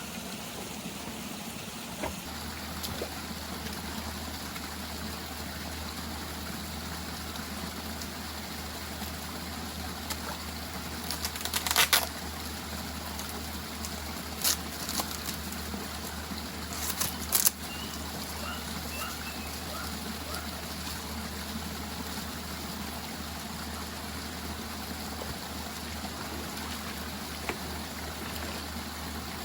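Steady rushing of a forest stream, broken by several sharp knocks, the loudest about twelve seconds in and two more close together near seventeen seconds.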